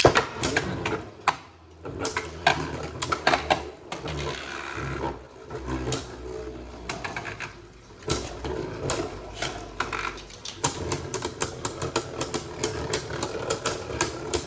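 Two Beyblade Burst spinning tops launched into a plastic stadium, whirring as they spin and clashing with many sharp plastic clacks at uneven intervals.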